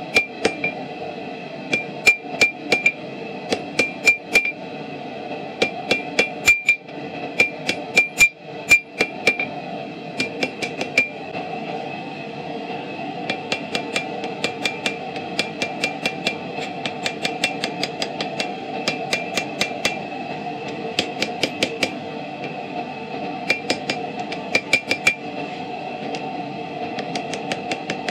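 Hand hammer striking a hot railroad spike on a steel anvil in quick runs of blows, each with a bright anvil ring, with short pauses between runs. The later blows, upsetting the spike's tip for a bottle opener, are quieter.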